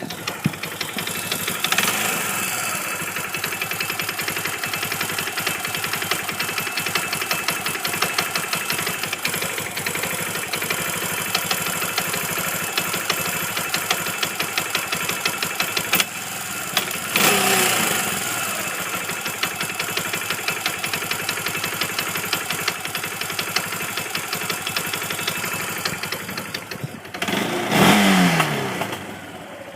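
Four-wheeler (ATV) engine running with a rapid, even knocking, blipped twice, about two-thirds of the way in and near the end, with the pitch falling back each time. The owner believes the knock is in the clutch: a worn washer letting the clutch slide on the crankshaft, a bad clutch bearing, or loose clutch bolts.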